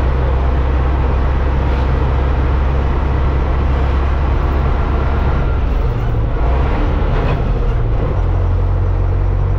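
Tatra 148 truck's air-cooled V8 diesel engine running with a steady deep drone; its note changes about six seconds in and settles into a new steady note about eight seconds in.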